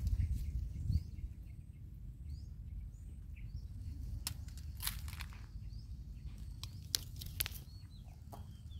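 Outdoor ambience: a steady low rumble of wind on the microphone, faint bird chirps now and then, and a few sharp crackles of twigs and dry leaves as a young monkey climbs through brush, the loudest about seven seconds in.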